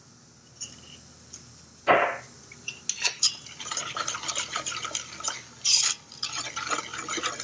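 Wire whisk rattling and scraping rapidly against the inside of a copper saucepan, stirring butter cubes into hot caramel sauce. The whisking starts about three seconds in, after a single knock.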